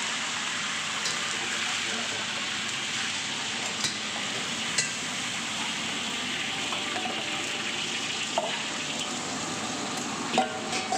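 Brown cooking liquid poured from a steel saucepan onto seared beef ribs in a hot pot, sizzling and bubbling steadily. A few light clicks of metal against the pot are heard along the way.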